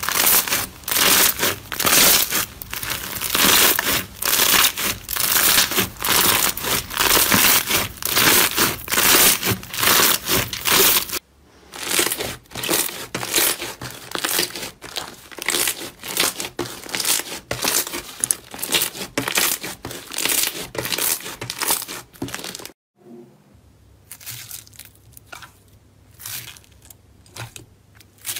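Hands squeezing slime in short back-to-back clips: dense crackling and popping, first from clear slime packed with foam beads, then, after an abrupt change, from a thick yellow slime being pressed. Near the end it cuts to a much quieter stretch with only scattered crackles.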